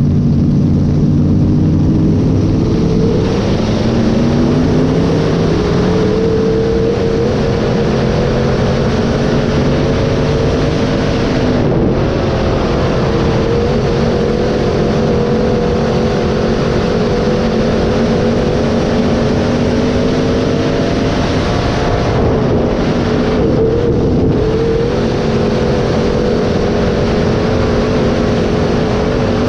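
Dirt-track sport mod race car's V8 engine running hard, climbing in pitch over the first few seconds, then holding at high revs with small rises and dips.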